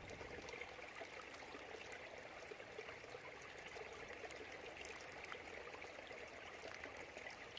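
A small stream trickling faintly and steadily, with scattered small splashes.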